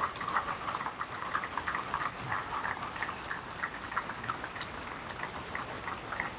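Audience applauding: many overlapping hand claps at an uneven rhythm.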